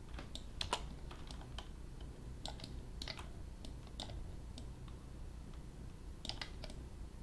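Irregular light clicks of a computer mouse and keyboard, some in quick pairs, over a faint low hum.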